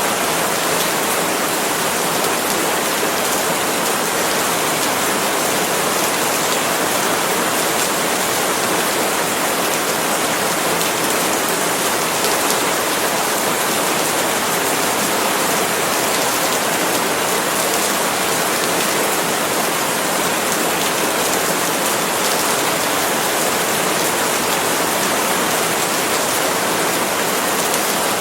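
Steady rain falling on palm leaves, an even hiss that holds without a break.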